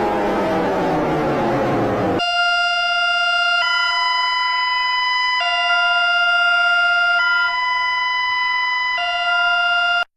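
Electronic emergency-alert alarm: a falling, buzzy pitch glide that ends about two seconds in, then steady pure-tone chords that switch between two pitch sets every second and a half or so, cutting off abruptly near the end.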